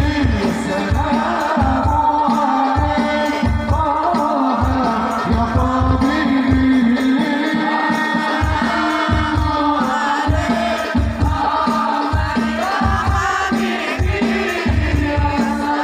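Voices singing sholawat, an Islamic devotional song, over a steady beat of hand-struck frame drums with a jingling rattle.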